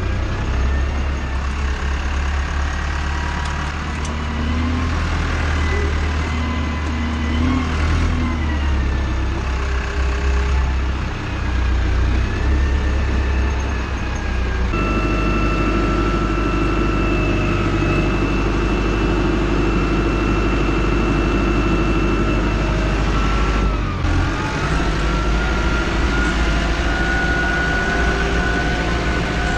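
Tractor engine running steadily, with a high whine from the machinery over it. The sound changes abruptly about halfway through.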